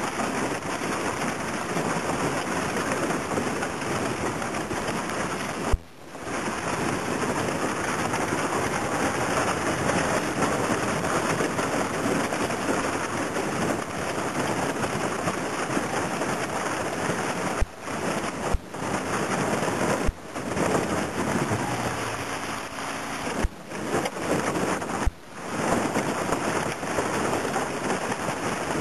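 Aluminum boat pushing through thin broken ice: a steady crackling hiss of ice fragments breaking and scraping along the hull, with the outboard motor running beneath it. The hiss cuts out for a split second several times.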